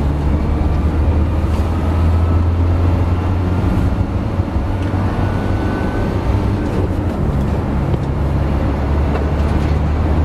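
Cabin sound of a Renault Master van under way: its diesel engine running steadily under a deep low rumble, mixed with road and tyre noise, and a faint whine that rises slightly in the first half.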